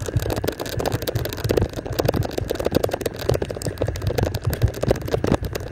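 Golf cart driving over grass, its body rattling with frequent irregular knocks over a low rumble.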